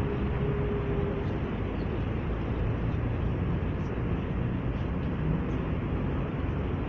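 Steady, even rumbling background noise in a large hall, with no speech. A faint short hum sounds for about a second at the start.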